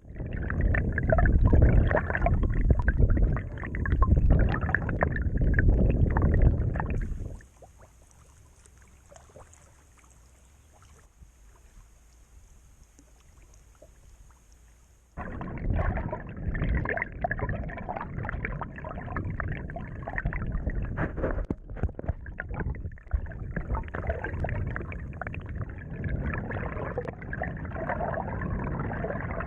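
Water sloshing and gurgling close against the camera as the kayak is paddled. About seven seconds in it cuts off to a much quieter stretch, and about halfway through the sloshing comes back abruptly.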